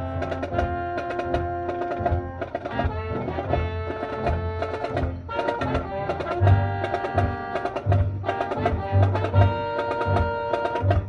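Marching band playing: wind and brass instruments hold chords over drum and mallet percussion strikes.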